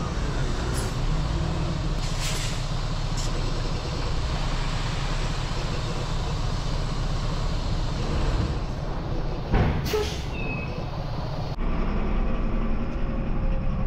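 Semi truck's diesel engine running steadily while its end-dump trailer is raised and unloading gravel, with a few short air hisses. Near the end the sound changes abruptly to a tractor engine heard from inside its cab.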